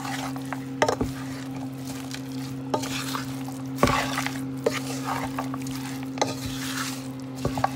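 A spoon stirring and scraping a meat and masala mixture in a cooking pot, with a light sizzle and several sharp knocks of the spoon against the pot. A steady low hum runs underneath.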